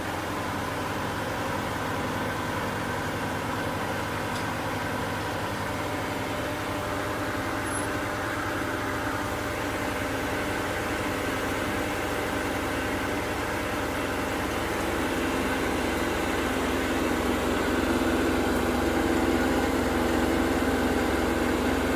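ASKO W6564 washing machine running its spin cycle, a steady mechanical hum and whir of the spinning drum and motor that grows somewhat louder about two-thirds of the way through.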